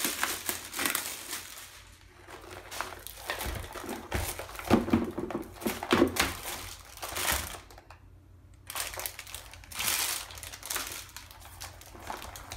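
Plastic packaging crinkling and rustling in irregular bursts as a deflated vinyl stability ring is pulled from its bag and unfolded by hand, with a short lull about eight seconds in.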